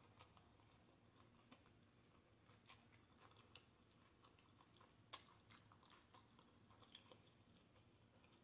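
Faint close-up chewing of a chicken taco, with scattered soft mouth clicks and small crunches, the sharpest about five seconds in.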